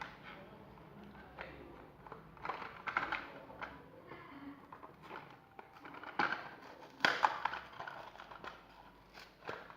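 Irregular clicks and crackles of a small die-cast toy car and its plastic and cardboard packaging being handled, with the loudest bursts about two and a half, six and seven seconds in.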